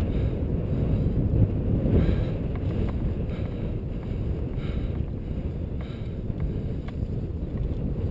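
Wind rumbling on an action camera's microphone while a mountain bike rolls over bare sandstone rock, a steady low noise that rises and falls slightly.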